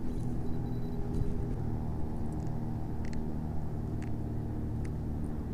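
A vehicle engine running steadily, heard muffled as a low rumble with a steady hum, with a few faint clicks.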